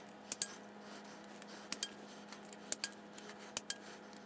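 Click-type torque wrench clicking as each cam plate bolt on a Milwaukee-Eight engine reaches its set torque: four sharp double clicks, roughly one a second.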